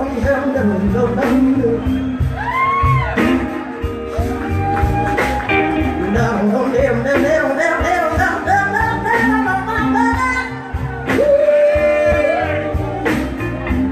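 Live soul-blues band playing: a woman sings into a microphone over drums, bass guitar, electric guitar and keys.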